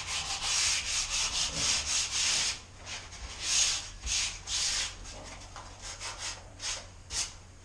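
Sandpaper rubbed by hand over a filled door frame in quick back-and-forth strokes, each a short scratchy hiss: 80-grit paper smoothing down filler over nail holes.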